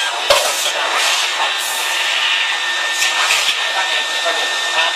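CNC tube bending machine at work on a steel tube: a steady whooshing machine noise with a sharp clack about a third of a second in and several short hissing bursts.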